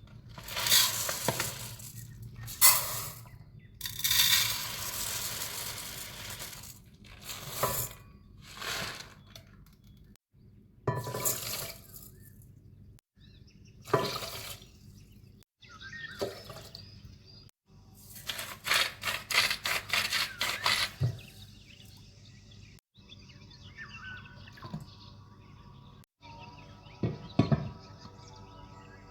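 Kitchen work in short cut-together clips: bursts of water running from a tap, with rattles and knocks of kitchen utensils between them.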